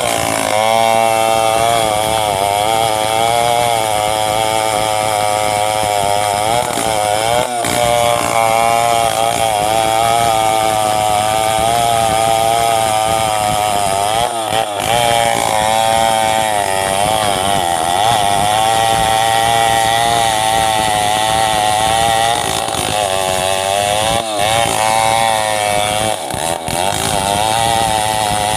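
Two-stroke petrol chainsaw running at high revs while ripping lengthwise through a coconut palm log. Its engine note wavers up and down as the load changes, and it dips briefly a few times.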